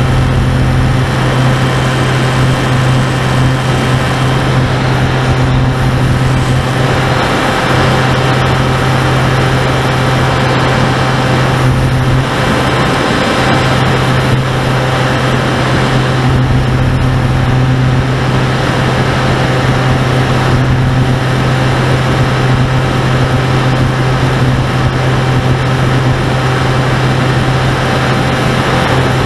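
Finwing Sabre model plane's pusher motor and propeller running at a steady throughput, with a strong low propeller hum and a rush of air over the onboard microphone. The pitch briefly dips a couple of times, as the throttle eases off.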